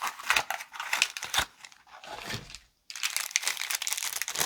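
Knife packaging crinkling and rustling as it is handled and unwrapped, in two spells of dense crackling with a short pause just before the middle.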